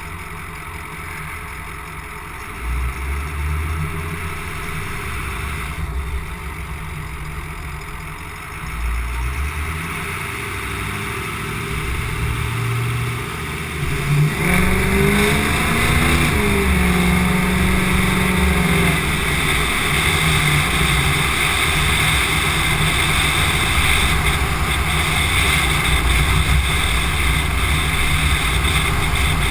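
Ford 6.0L Power Stroke V8 turbo-diesel with a straight-piped exhaust, idling low and then revving. About halfway through it launches hard, its pitch climbing and dropping through the shifts. It then runs loud and steady under way, with wind and road noise rushing over the microphone.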